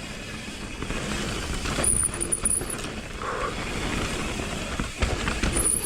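Mountain bike rolling fast down a dirt trail: wind buffeting the microphone and the tyres and frame rattling over the ground, with a short high whir of the rear hub twice when coasting.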